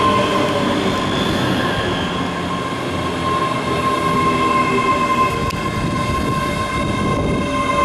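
Train moving through the station, loud and continuous, with steady high-pitched ringing tones over the rumble of the wheels on the rails.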